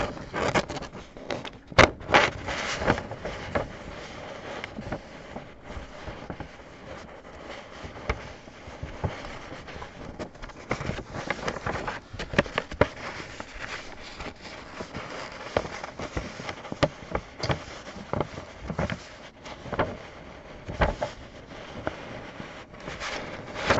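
Crackling and irregular clicking of plastic wrap and cardboard hobby boxes being handled, with a few sharper snaps.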